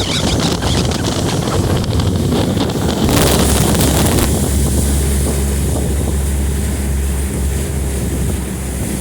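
Mercury two-stroke outboard motor running as a pontoon boat cruises, with wind buffeting the microphone and water rushing past. A louder rush of noise comes about three seconds in and lasts about a second, after which a steady low engine hum stands out.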